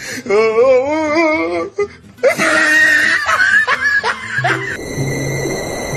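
A person laughing hard in long wavering peals, then a louder burst of laughter; about five seconds in it gives way to music.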